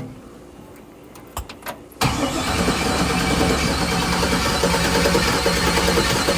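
A V8 car engine bursts into life about two seconds in and runs loudly and steadily, after a few sharp clicks.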